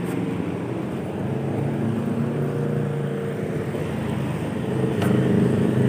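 Road traffic close by: a car's engine running as it passes, with steady traffic hum and a short knock about five seconds in.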